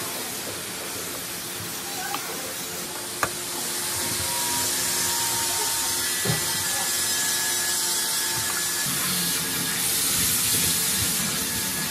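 Steady hissing background noise, with a few light clicks as a handle and nut are fitted to a smoke machine's metal case.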